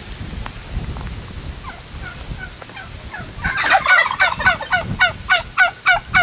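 Domestic turkey calling: a loud run of short, falling calls, about four a second, that starts a little past halfway through and keeps going.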